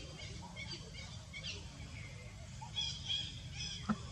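Short high-pitched chirping animal calls, many in quick succession and most frequent about three seconds in, over a steady low rumble, with one sharp tap near the end.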